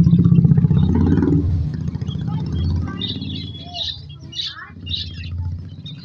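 A low engine rumble dies away over the first couple of seconds. Then a flock of caged lovebirds chirps in short, high calls.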